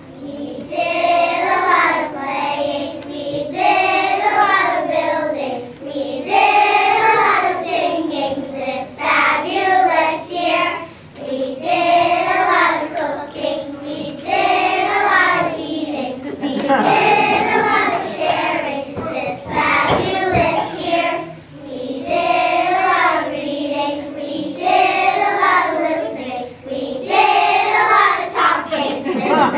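A class of young children singing a song together, in sung phrases of a second or two with short breaks between them.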